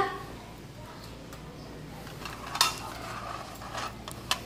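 Agar petri dishes being set down and arranged on a lab bench: a few light clicks and taps, with two close together near the end.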